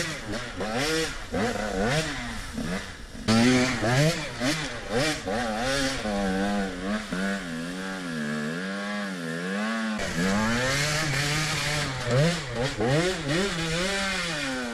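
Two-stroke enduro dirt bike engine revving up and down over and over as it climbs a steep, loose dirt hillside, the rear wheel spinning and throwing dust.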